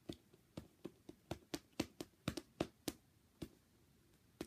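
Hands handling and patting squishy toys: a quick run of light, sharp taps, about four a second, then a single tap a little later.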